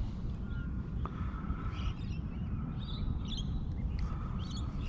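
Faint bird chirps, short and curling, scattered over a low steady rumble.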